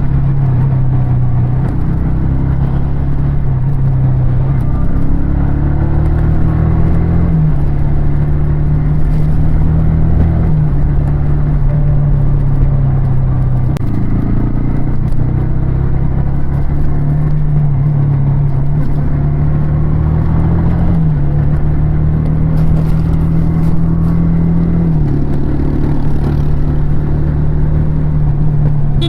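Yamaha R15 V3's single-cylinder four-stroke engine and exhaust running under way on the road. The engine note climbs slowly and then shifts abruptly several times.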